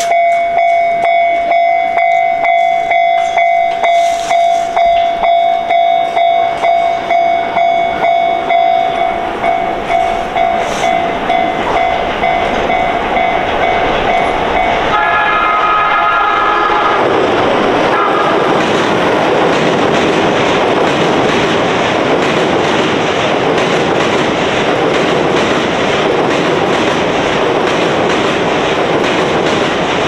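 Japanese level-crossing alarm ringing in rapid, even strokes, then a brief horn about halfway through. From a little past halfway, a freight train hauled by an EH200 electric locomotive passes with a loud, steady rush of wheels on rails that drowns out the alarm.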